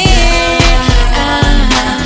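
Loud background music in an R&B/hip-hop style, with a steady heavy beat and sustained melodic lines.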